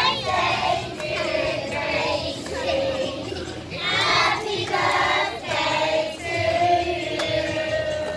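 A group of children singing together, in phrases with some long held notes.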